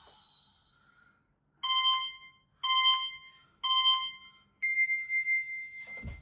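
Electronic countdown sound effect: three short beeps a second apart, then a longer beep an octave higher, like a start signal or time signal. It opens with the tail of a high electronic chime fading out.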